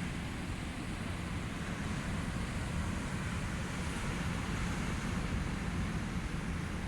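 Steady low rumbling noise with wind on the microphone.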